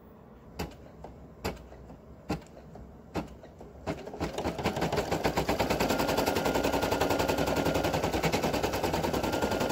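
Brother PE800 embroidery machine sewing a placement stitch. It gives a few separate needle clicks about a second apart, then about four seconds in it speeds up into a fast, even rattle of stitches with a steady motor whine.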